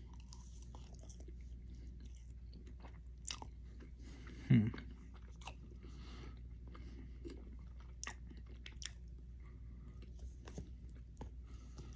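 A person chewing a mouthful of loaded fries, with soft wet mouth clicks and smacks. About four and a half seconds in there is one short low hum from the throat, falling in pitch.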